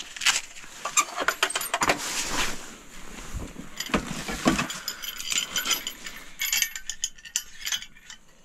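Clicking, clinking and rattling of a portable two-burner propane camp stove being handled and set up, as its metal parts and brass hose fitting knock together and a propane cylinder is fitted to the hose.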